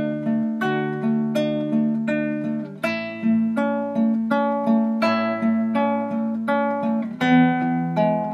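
Guitar fingerpicked through a slow A, E and D chord pattern: a pinch of bass and treble, then single notes on the D, G and B strings, about three notes a second. The bass note changes with the chord about 3 s and 7 s in.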